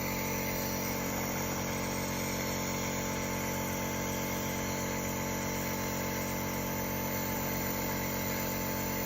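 Compressor nebulizer running with a steady, unchanging motor hum as it drives medicated mist to a child's face mask.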